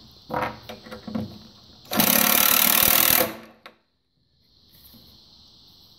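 Power drill driving a screw through the bench seat into the wooden leg in one run of about a second and a half, starting about two seconds in and stopping abruptly.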